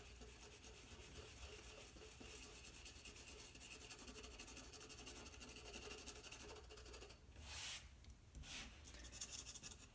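White charcoal pencil scratching on black drawing paper in rapid short strokes, laying down and evening out white tone on a shaded sphere. Faint throughout, with a louder brief rustle about seven and a half seconds in and a shorter one a second later.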